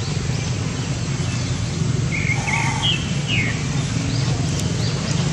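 Outdoor background with a steady low rumble, and a few short high chirps a little past halfway through.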